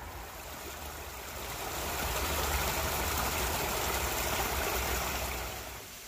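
Steady rush of water from a small waterfall, growing louder about two seconds in and easing off near the end, over a low rumble.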